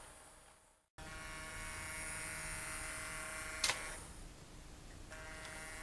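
Small electric motor of an H0-scale model diesel locomotive on a Roco chassis whining steadily as the train runs along the track, with wheel and track noise. The sound breaks off briefly just before a second in, and a single sharp click comes about three and a half seconds in.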